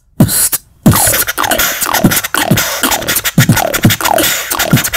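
Fast beatboxed intro pattern: deep kick drums that drop in pitch, mixed with scratch-like sounds, about three hits a second. A few separate hits come first, then it settles into a steady rhythm about a second in.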